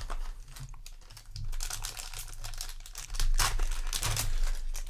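Foil booster pack wrapper of a trading card game crinkling and being torn open by hand, in irregular rustling bursts that grow louder about three seconds in.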